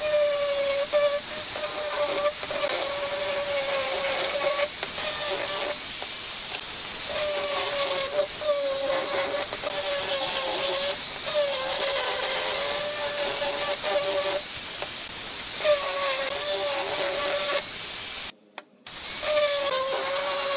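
Angle grinder with a sanding disc running on a wooden board: a steady motor whine that wavers slightly, over the rushing hiss of the abrasive on the wood. The sound breaks off briefly a few times, with a half-second gap near the end.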